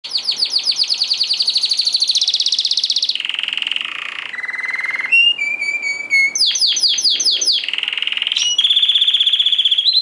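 Domestic canary singing strongly: a chain of fast, even trills, each held for a second or more before jumping to a new pitch. Near the middle come a few clear whistled notes and a handful of quick downward-sweeping notes.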